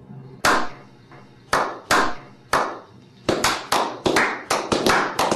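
Slow clap: hand claps begin about a second apart and speed up toward the end as more hands join in, each clap trailing off briefly.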